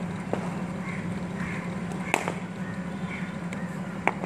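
Cricket ball struck by a bat with a sharp crack about two seconds in, followed by lighter knocks, over a steady low hum. Short chirping calls sound faintly in the background.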